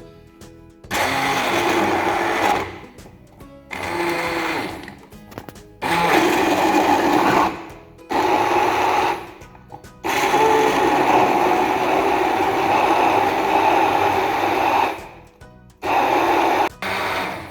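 Electric blender running in about six pulses with short pauses between them, the longest of some five seconds in the middle, blending a cut whole lemon with a glass of water.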